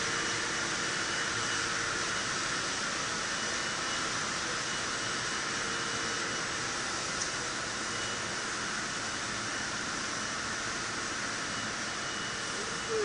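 Steady industrial machinery noise in a copper tube plant: a continuous hiss-like rush with a faint high whine, unchanging throughout.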